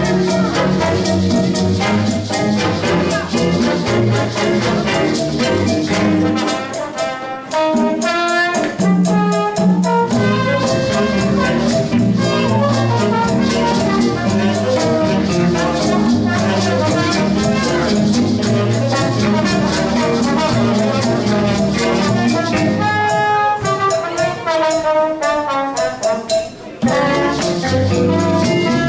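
Jazz big band playing a swing number: saxophone and brass sections over drum kit and bass with a steady beat. There is a short break near the end before the band comes back in.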